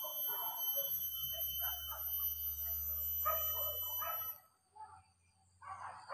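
Hunting dogs barking and yelping in wavering, drawn-out calls, in a few bouts that break off abruptly a little over four seconds in.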